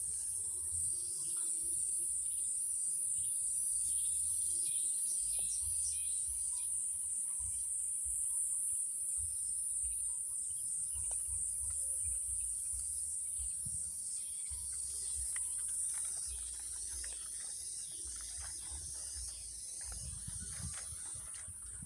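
Steady high-pitched insect chorus, a continuous shrill buzzing, with irregular low rumbles and bumps underneath.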